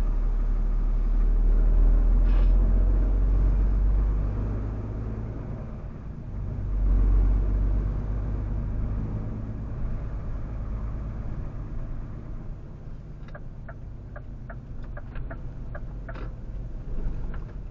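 Heavy truck's engine and drivetrain rumbling low inside the cab as it drives slowly. The rumble swells briefly about seven seconds in, then settles quieter, with a few faint clicks near the end.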